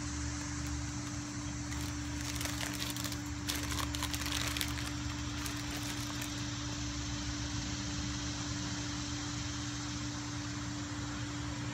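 Crinkling and crackling from eating a wrapped burrito, loudest between about two and six seconds in, over a steady machine hum and hiss.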